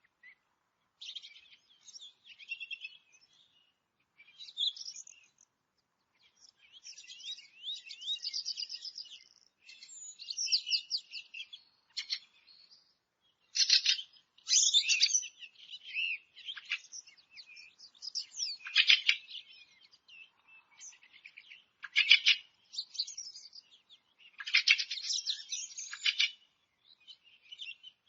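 Several forest birds singing and chirping, their songs overlapping: quick high trills and fast runs of notes, one after another with short gaps.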